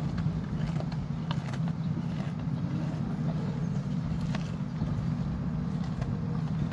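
A steady low machine hum runs throughout, with a few faint crunching clicks from a bull chewing chopped stalks at a feed trough.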